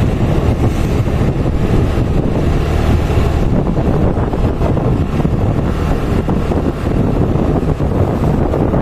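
Motorcycle riding along at steady speed: a steady low engine hum under heavy wind noise on the microphone.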